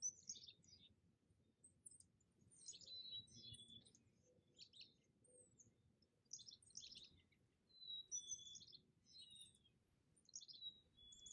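Faint small-bird calls: short chirps and chattering notes repeated about once a second, over a low background hiss.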